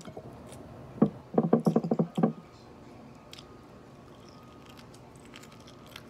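Eating a fried pork rib by hand: faint clicks and smacks of biting and chewing on the meat and bone. About a second in there is a sharp knock, followed by a short loud rattling burst that lasts about a second.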